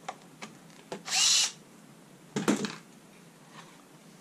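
A Bosch cordless screwdriver runs in one short whirr about a second in, working a screw on the light's base. About two and a half seconds in comes a knock and rattle of the plastic housing being handled, with small clicks around it.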